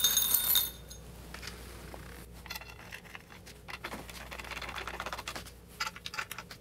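Small metal nuts and screws clinking in a small bowl as two nuts are picked out, then faint clicks and taps of the nuts being fitted and a Phillips screwdriver turning screws into the dolly's plastic bracket.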